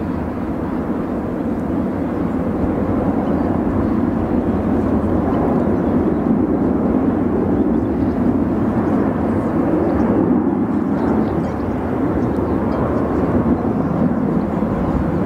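Airbus A380 four-engine jet airliner flying a display pass: a steady rushing jet noise that grows slowly louder as the aircraft banks and climbs.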